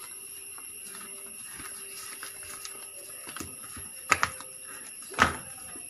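A few sharp clicks or knocks over a steady faint high-pitched hiss: two close together about four seconds in, then a louder one about a second later.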